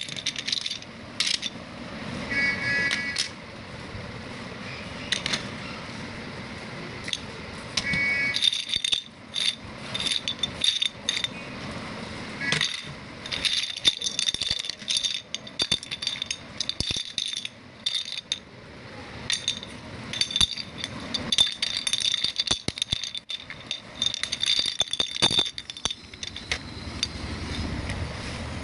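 Small plastic dominoes clattering and clicking against each other and against plastic toy parts as they are handled, with many irregular sharp clicks.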